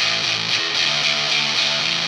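Electric guitar played through a Sola Sound Tone Bender MK IV 'Esprit Blanc' fuzz pedal: a run of fuzzed, distorted notes changing every fraction of a second, thick with overtones.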